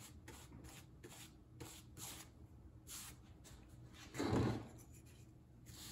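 A series of faint, short strokes of a paintbrush laying spar urethane onto wooden boards, with one louder soft rustle about four seconds in.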